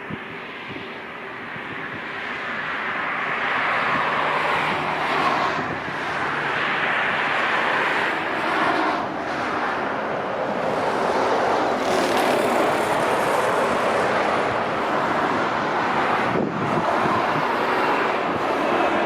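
Jet airliner engines running as a plane passes close by, the noise building over the first few seconds and then holding steady. Wind buffets the microphone throughout.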